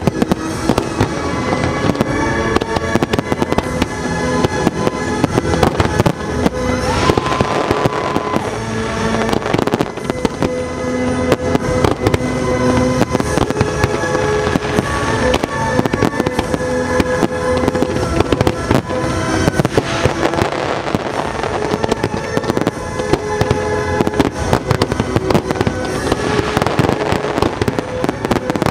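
A fireworks display going off in quick succession, dense bangs and crackling with no let-up, over music playing throughout.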